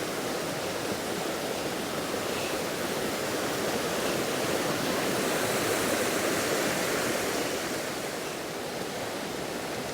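A fast-flowing river rushing over rapids, swollen by heavy rain: a steady roar of water that swells a little around the middle.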